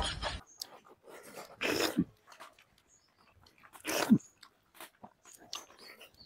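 Close-up mouth sounds of eating rice and chicken curry by hand: two louder slurps, about two and four seconds in, as food is sucked off the fingers, with faint lip smacks and clicks between.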